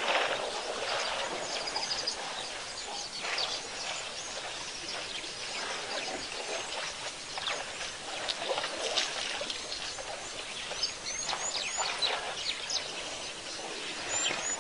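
Outdoor ambience of birds chirping, with a few quick chirps near the end, over a steady hiss.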